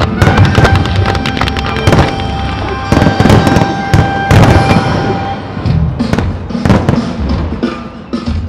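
Fireworks shells and rising comets firing and bursting in a rapid barrage of bangs, with music playing underneath. The shots thin out and get quieter near the end.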